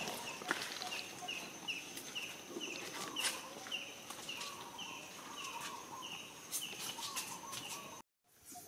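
A bird calling, a short, high, falling chirp repeated evenly about twice a second, with a few lower clucking calls among them. The sound cuts out briefly near the end.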